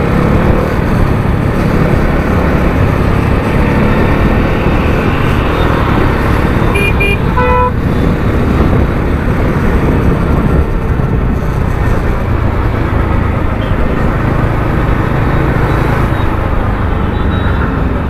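Bajaj Dominar 400 motorcycle riding in traffic: a steady rumble of wind and engine on the bike-mounted camera's microphone. About seven seconds in, a vehicle horn gives a quick run of short beeps.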